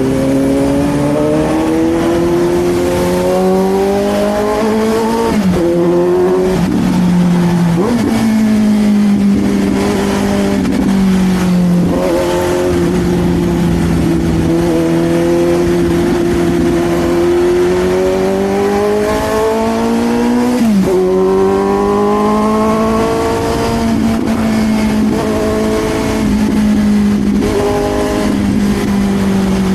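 Suzuki GSX-S750 inline-four engine with an SC Project slip-on exhaust, riding: the revs climb and then drop sharply as it shifts up, about five, eight, twelve and twenty-one seconds in, with steady cruising between.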